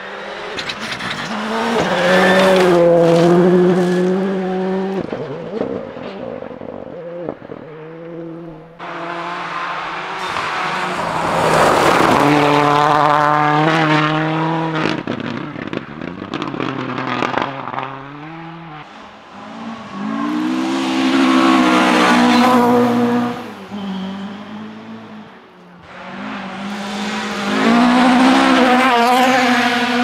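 Rally cars passing one after another on a gravel forest stage, four passes in all. Each engine revs hard with gear changes, swells to a peak and fades, with loose gravel spraying from the tyres. The last car is a Fiat 131.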